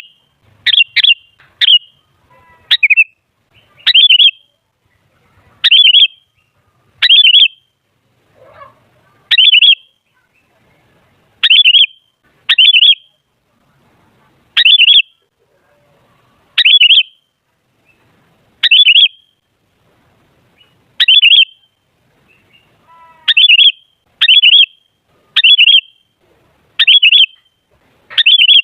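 Sooty-headed bulbul (kutilang) giving short, loud calls over and over, about one every second or two, sometimes two in quick succession.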